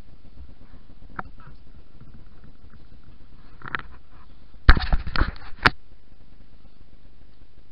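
A quick, irregular cluster of loud, sharp knocks and rattles right at the microphone about five seconds in, with a softer one shortly before, over a steady low rumble.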